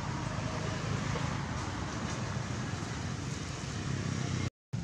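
Steady outdoor background noise, a low rumble with hiss and no distinct event, cutting out completely for a moment near the end.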